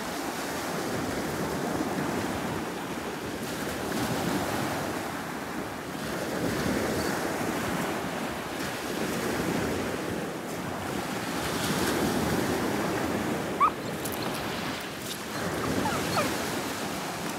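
Small waves breaking and washing up a sandy beach in slow, repeated swells, with wind buffeting the microphone. A short high chirp sounds once about two-thirds of the way in.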